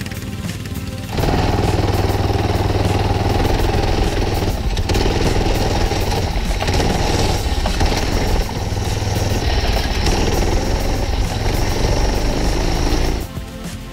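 Minibike's 6 hp small engine running hard at close range while the bike is ridden, easing off briefly a couple of times. It comes in suddenly about a second in and cuts off about a second before the end.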